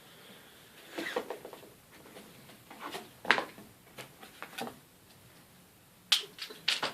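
A cardboard parcel being opened and handled, with scattered rustles and knocks. The sharpest come about three seconds in and again near the end.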